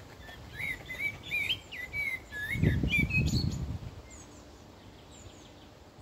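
A songbird singing a fast phrase of quick, whistled notes that rise and fall, followed by a few short, higher calls. Midway through, a low muffled rumble, the loudest sound, lasts about a second.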